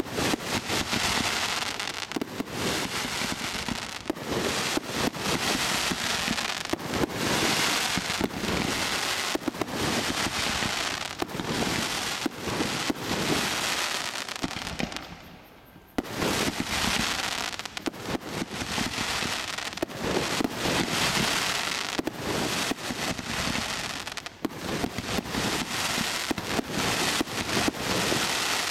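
A 2-inch bore, 49-shot display firework cake firing a continuous barrage, each shot's crackling tail and crackling palm break giving a dense, unbroken crackle full of sharp pops. The firing fades to a brief lull about halfway through, then resumes just as dense.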